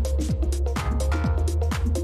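Background music: electronic dance track with heavy bass and a fast, steady beat.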